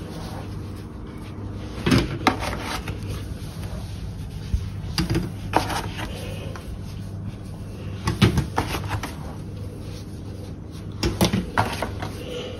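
Kitchen handling sounds: scattered knocks and clicks of utensils, dishes or cupboard doors, a few seconds apart, over a steady low hum.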